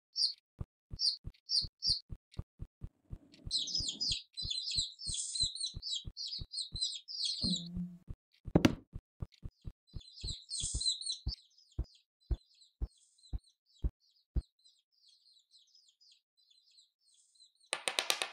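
Cartoon chicks chirping in quick high twitters over a steady tick about twice a second, with one loud knock about eight and a half seconds in. A scratchy rattle starts right at the end.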